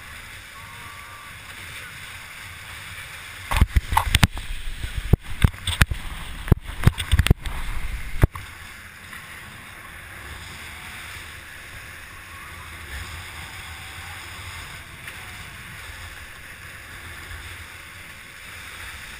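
Hobie catamaran running fast through choppy water, with a steady rush of wind and water. About three and a half seconds in comes a run of loud knocks and crackles as the hulls and spray hit the chop, lasting some four seconds before the steady rush returns.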